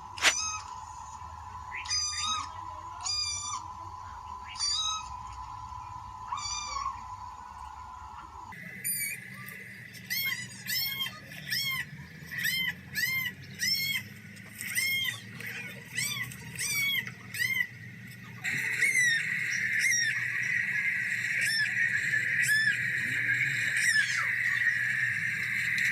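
Repeated short, high-pitched animal calls, each rising and falling in pitch, at times about one or two a second, over a steady background hum that shifts abruptly twice.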